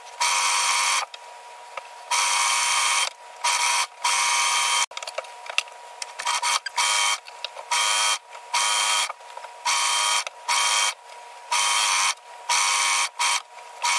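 Electric sewing machine stitching a zigzag seam, run in a dozen or so short bursts that start and stop sharply, each under about a second. A faint steady tone runs underneath.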